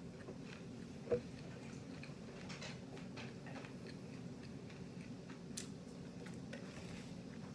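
Close-up chewing and crunching of spicy fried chicken breading, soft scattered crackles, with one sharper click about a second in. A steady low hum underneath.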